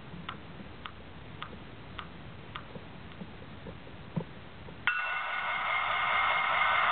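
Faint, regular ticking, about two ticks a second. About five seconds in, the onboard sound of an HO-scale Union Pacific SD70ACe model diesel locomotive cuts in suddenly: a loud, steady sound from the model's small speaker, made of several high tones with no low end.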